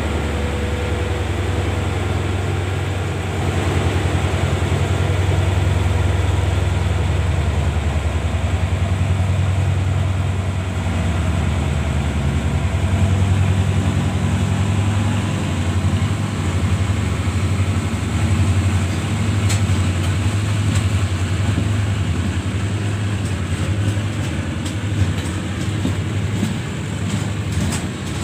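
SRT diesel-electric locomotive D.4512 with its engine running, a steady low throb. From about two-thirds of the way through, sharp clicks begin and come faster near the end, like wheels starting to roll over rail joints.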